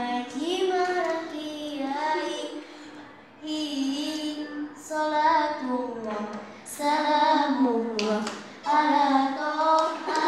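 A young girl singing solo and unaccompanied in a sweet, melodious voice, with long held notes and short pauses between phrases.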